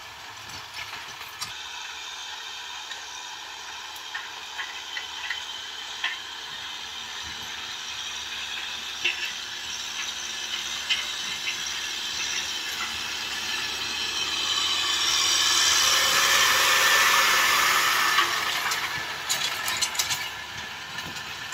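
Kubota tractor working a field with a rear-mounted rotary tiller churning dry soil: a steady mechanical clatter with many small clicks and knocks. It grows louder about two-thirds of the way in, then eases near the end.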